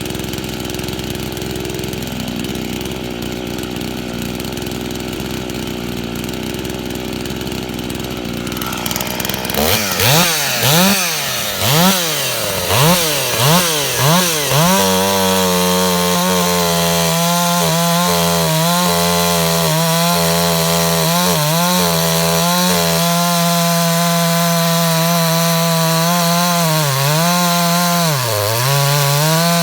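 Ported Dolmar 5000S two-stroke chainsaw. It runs steadily at low speed, then the throttle is blipped about six times, each rev rising and falling. It is then held wide open at a steady high pitch, which sags briefly twice near the end.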